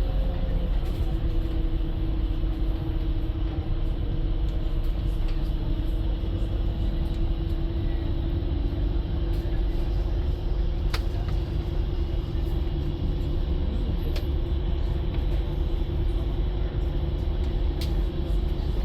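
Passenger ferry's engines running steadily: a low rumble with a constant hum, unchanging in level, with a few faint clicks.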